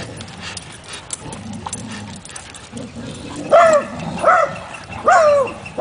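Dogs at play over a rope tug toy; about three and a half seconds in, a dog gives three high yelping barks, each rising sharply and then dropping in pitch, under a second apart.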